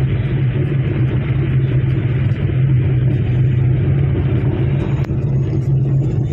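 Steady drone of a car's engine and tyres on the road, heard from inside the cabin while driving at an even speed.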